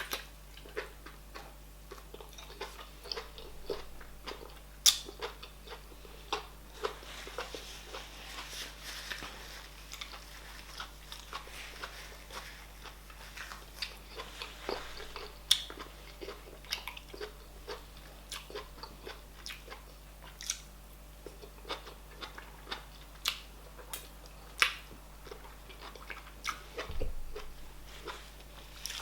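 Close-miked chewing of soft cauliflower fufu with oha soup, with many short wet mouth clicks and smacks at irregular intervals.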